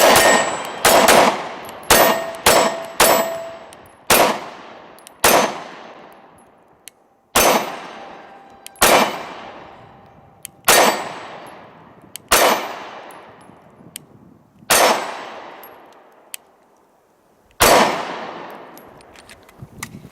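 About a dozen 9mm pistol shots from a Glock 26, quick at first and then spaced a second or two apart. Each shot is followed by the ringing clang of a steel target being hit.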